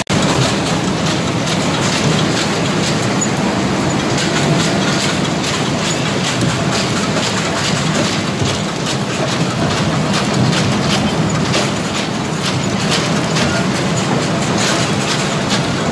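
Palm kernel mill machinery running: a steel screw conveyor turning in its trough and moving crushed palm kernels, with a steady low hum and a constant dense clatter of kernels.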